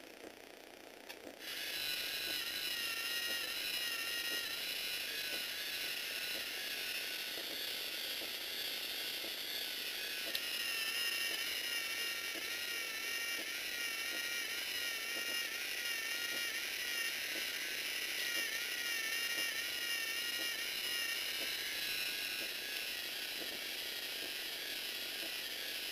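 Lego Technic plastic gear train, driven by a Lego electric motor, starts up about a second and a half in and then runs steadily. It gives a high, slightly wavering whine over a fast rattle of tooth clicks.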